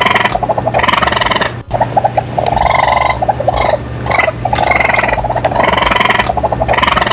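An animal calling over and over in quick succession, each call under a second long with a rapid pulsing buzz to it.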